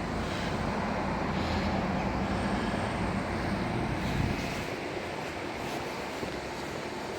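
Steady engine rumble with outdoor background noise; its low hum fades away about four and a half seconds in.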